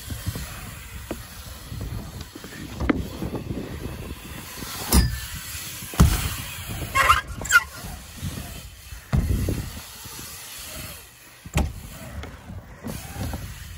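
BMX bikes riding a wooden ramp track: tyres rumbling over the wooden surface, with several sharp knocks from wheels landing and striking the ramps.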